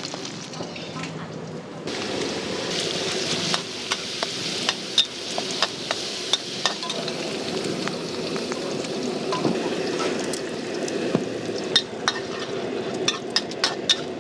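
Pork and basil being stir-fried in a hot pan: a steady sizzle, with a metal spatula clacking against the pan. The clacks come quicker near the end.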